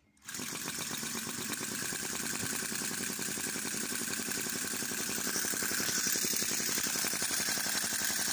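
Chinese V-twin flame-licker (vacuum) model engine running fast, with a rapid, continuous popping from both cylinders as each draws in its flame. The sound cuts in abruptly a moment in.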